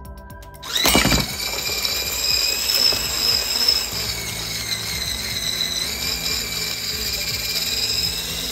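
Electric immersion blender with a whisk attachment starting up about a second in, its motor whine rising quickly, then running steadily as it whips cream, sugar and cream cheese in a tall plastic beaker.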